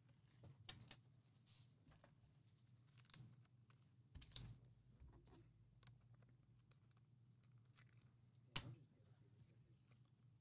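Near silence with a few faint, scattered clicks of trading cards being handled and flicked through by hand, the sharpest about eight and a half seconds in.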